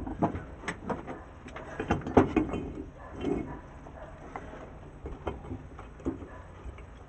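Metal starter-motor parts, the pinion drive on its shaft and the nose housing, clicking and knocking together as they are handled and fitted during reassembly. The clicks come thick in the first couple of seconds, then thin out to single taps.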